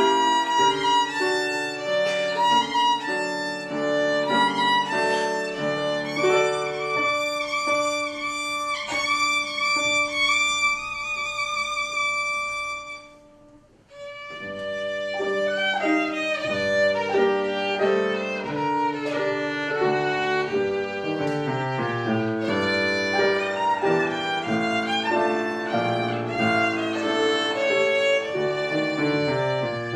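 Violin playing a melody with piano accompaniment. The music breaks off briefly about halfway through, then picks up again.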